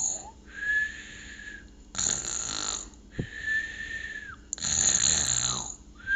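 Imitated cartoon snoring of a sleeping lion, made with a person's voice. A rasping snore on each in-breath alternates with a steady high whistle on each out-breath, going round about twice: whistle, snore, whistle, snore.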